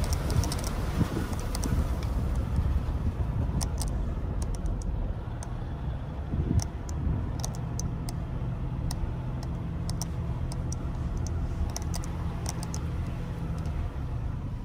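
Car driving slowly along a farm track, heard from inside the cabin: a steady low engine and tyre rumble, with scattered light ticks and wind noise that fades over the first couple of seconds.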